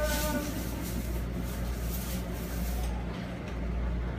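A voice trailing off at the start over a steady low hum, with a high hiss that fades out about three seconds in.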